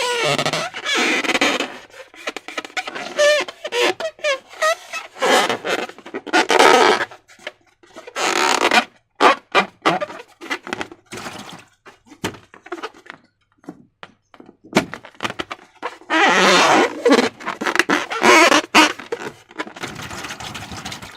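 Hands working slime and rubber balloons: irregular wet, sticky squelches and sharp clicks, with short wavering squeaky tones in the first few seconds.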